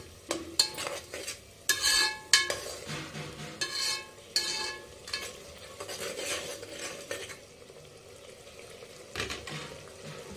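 A steel spoon stirs and scrapes chopped tomatoes frying in oil in a pressure cooker pot, clinking against the metal side a few times. For the last few seconds only the quiet sizzle of the frying tomatoes is left.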